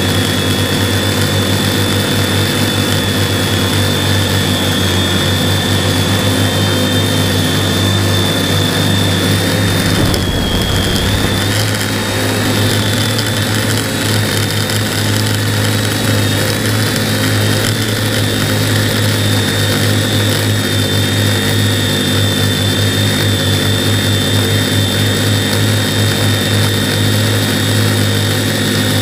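A multirotor drone's motors and propellers running, heard through its own onboard microphone as a steady loud buzz with a high whine, the whine's pitch wavering briefly about ten seconds in.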